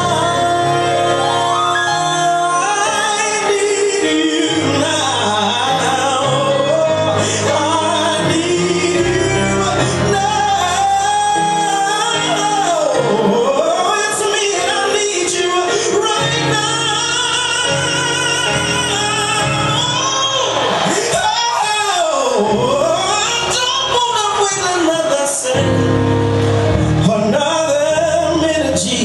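Gospel song with a solo voice singing long held notes with vibrato and sweeping melismatic runs over a band with a steady bass line, loud throughout.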